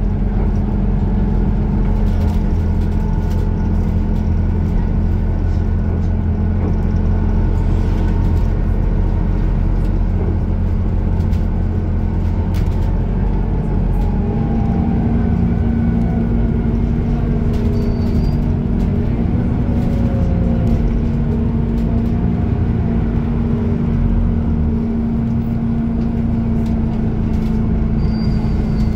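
Scania articulated city bus heard from inside while driving, its engine and drivetrain droning steadily. About halfway through, a whine rises and falls in pitch for several seconds as the bus changes speed.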